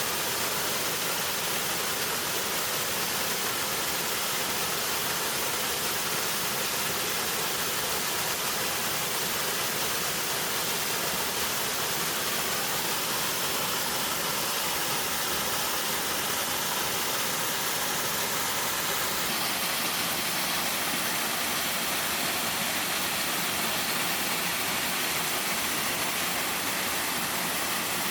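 Small mountain waterfall pouring into a valley stream: a steady, unbroken rush of falling water.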